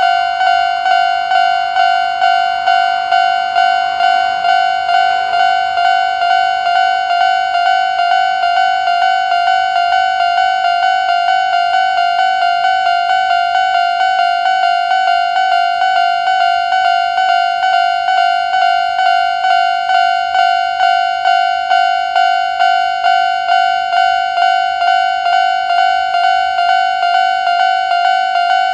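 Railway level-crossing electronic warning bell of the old standard Japanese type, ringing a steady repeated ding about twice a second. Its alarm units sound out of step with each other, so in places the strikes double up and blur together.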